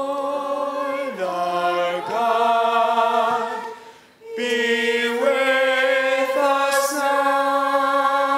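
Unaccompanied voices singing long held notes, shifting to a new pitch every second or two, with a short break about four seconds in.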